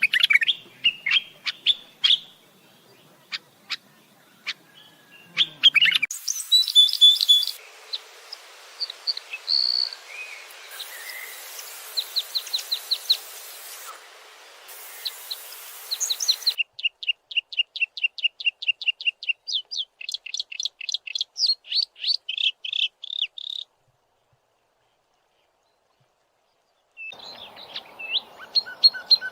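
Songbirds chirping and singing, with short high calls and, past the middle, a fast run of repeated chirps. The sound cuts abruptly between sections and drops out to total silence for about three seconds before the chirping resumes.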